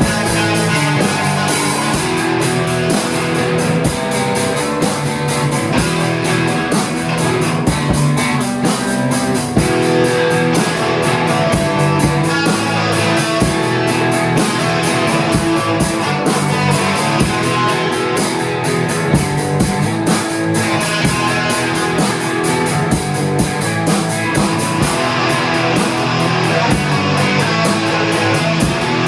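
Live rock band playing a song: guitar strumming over a drum kit keeping a steady beat.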